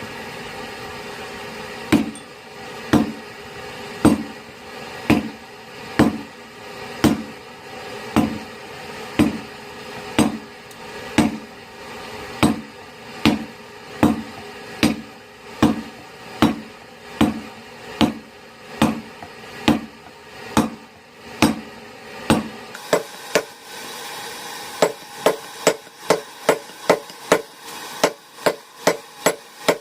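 Hand hammer striking hot steel bar on an anvil, forging rebar and drawing it thinner: evenly spaced blows about one a second, then after a short pause a quicker run of about two a second near the end. A steady hum runs underneath.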